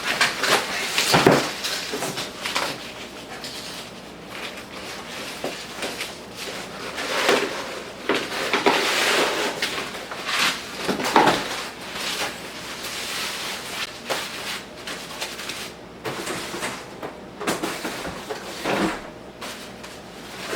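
Handling noise: several knocks and thuds with rubbing and rustling in between, as the tool, track and packaging are moved about by hand.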